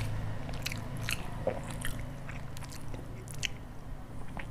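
Close-miked mouth noises of someone chewing a mouthful of puri and sabji: scattered short wet clicks and smacks, over a low steady hum.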